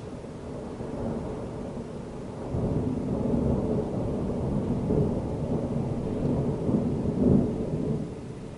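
Thunder rumbling low and long, swelling about two and a half seconds in, peaking near the end, then dying away.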